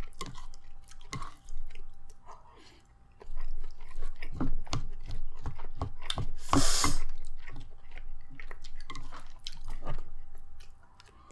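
Close-up chewing and mouth sounds of people eating Korean-style Chinese food, with many small wet clicks. A little past halfway there is one brief, louder rush of noise.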